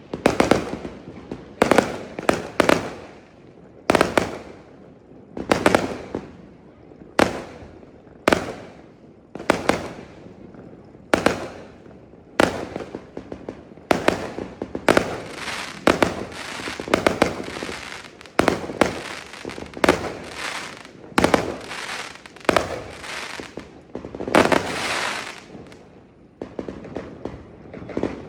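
Aerial fireworks bursting one after another, a sharp bang roughly every second or so. From about the middle until near the end a crackling hiss fills the gaps between the bangs.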